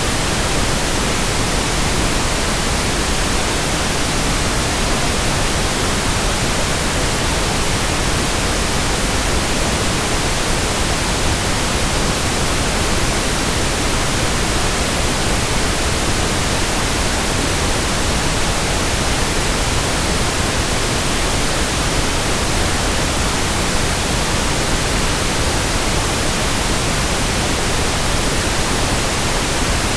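Steady pink noise: an even, unbroken hiss that does not change.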